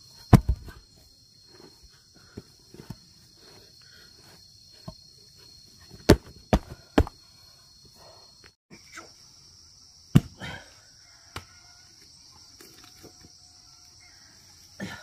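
Heavy paving slabs being set onto bare soil and stamped down with rubber boots: a loud thud about half a second in, three quick knocks around six to seven seconds, and another near ten seconds. Insects buzz steadily behind.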